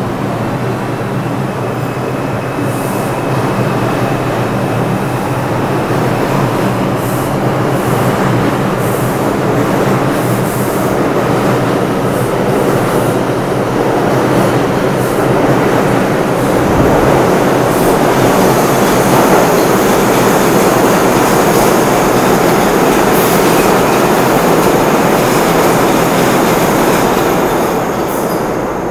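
New York City subway train pulling out of a station, its motors humming and wheels rumbling louder as it gathers speed, with some high wheel squeal. The noise drops off near the end as the cars clear the platform.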